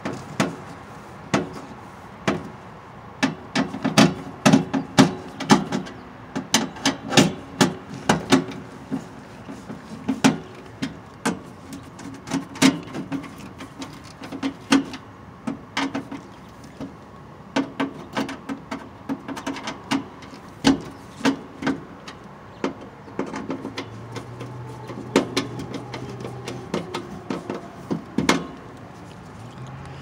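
Nut driver working sheet-metal screws on a furnace's inducer mounting plate: many irregular sharp metal clicks and knocks, loudest in the first ten seconds, with a short low hum about two thirds of the way in.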